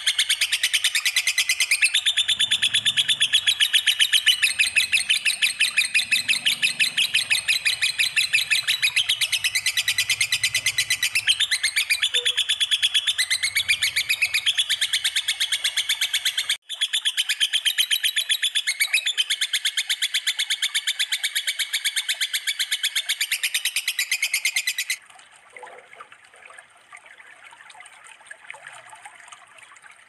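Cage bird chattering in a fast, unbroken trill of rapidly repeated high notes, with a split-second break about halfway through. Near the end the trill stops abruptly, leaving only faint, sparse calls.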